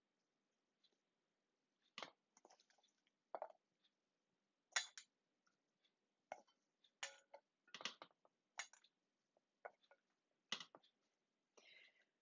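Chunks of raw potato set one at a time into a glass baking dish among cut vegetables. About a dozen faint, irregular taps and knocks start about two seconds in.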